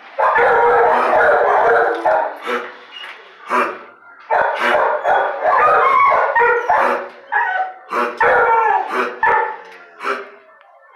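Dogs barking and howling in several long, loud stretches with short breaks between them.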